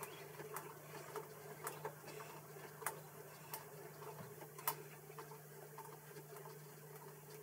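Boxford lathe running with a steady low hum while a die in a tailstock die holder cuts a 3mm × 0.5mm thread on an aluminium stud, with light, irregular ticks every half second to a second or so.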